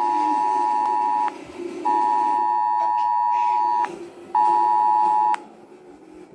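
Emergency alert attention tone, the two-pitch warning signal, sounding loudly for a nationwide FEMA test alert. It comes in on-off pulses: one ends about a second in, then a longer one of about two seconds, then a shorter one of about a second, with half-second gaps between.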